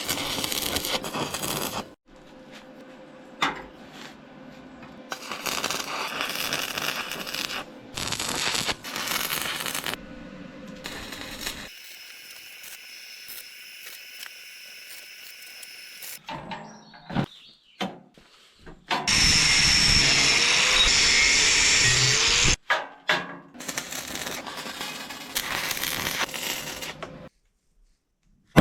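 Metalworking noise in short cuts: an angle grinder running on steel, with a high whine in its loudest stretch, between quieter workshop sounds.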